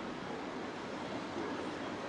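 Steady city street ambience: an even wash of traffic and crowd noise.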